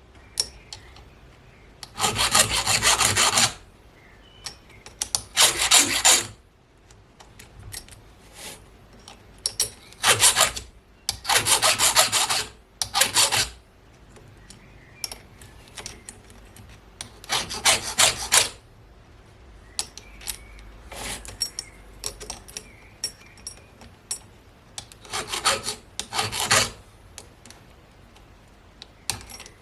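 Hand file strokes sharpening a chainsaw chain: short rasping strokes of a second or so, in several groups separated by pauses with small clicks and handling noise.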